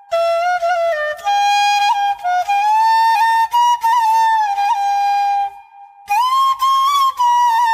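A solo flute plays a slow devotional melody, sliding and bending between held notes. It pauses briefly about five and a half seconds in, then comes back on a higher note.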